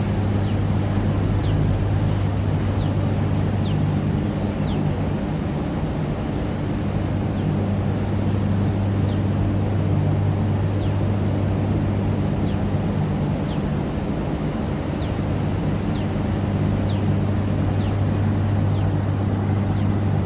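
Steady rushing roar of floodwater discharging through the open spillway gates of Hirakud Dam, with a constant low hum underneath. Short high whistles falling in pitch sound every second or two.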